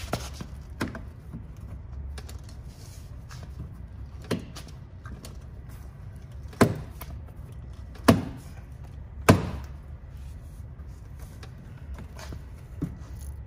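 A plastic composite rock guard being pressed and snapped into the tabs of a car's front wheel well: a string of sharp clicks and knocks, the three loudest a little past the middle, over a steady low hum.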